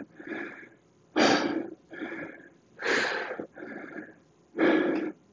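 A man breathing hard through deep in-and-out breaths, with three louder exhales about every second and a half, winded after intense exercise.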